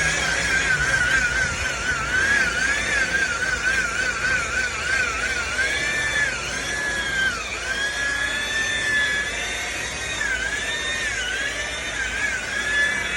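Electric buffer set at about speed 5, running with compound on boat gelcoat to cut out wet-sanding scratches. Its motor whine wavers quickly in pitch at first, then dips and recovers several times as pressure on the pad changes.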